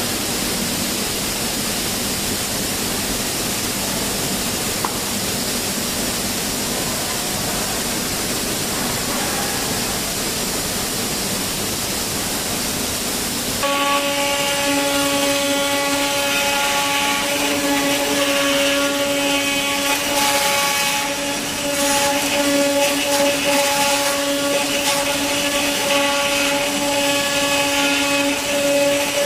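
CNC knife cutting machine running: a steady hiss, then about halfway through a louder steady whine with overtones starts up and holds.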